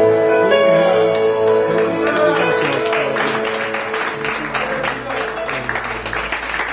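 A worship band's final chord rings out on guitar and fades, while a congregation's applause starts up about halfway through and takes over.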